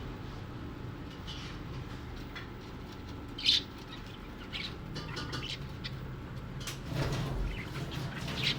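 A pet parrot giving short, high chirps, the loudest about three and a half seconds in, with a louder stretch of rustling about seven seconds in, over a steady low background rumble.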